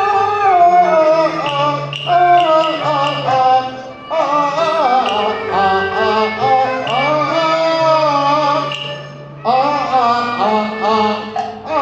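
Cantonese opera music: an ornamented melody sliding between notes over a steady low bass line. The music dips briefly about four and nine seconds in.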